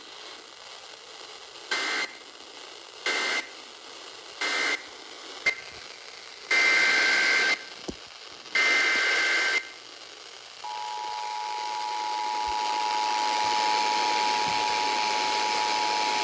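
Emergency Alert System data tones: three short screeching data bursts marking the end of one warning, then two longer bursts carrying the header of the next warning. About ten seconds in, the steady two-tone EAS attention signal starts and holds over radio hiss.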